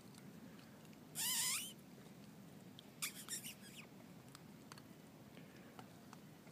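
Pyrenean mastiff puppy giving one high-pitched, wavering yelp about a second in while being mouthed by its playmate, then a shorter, rougher burst of sound about three seconds in.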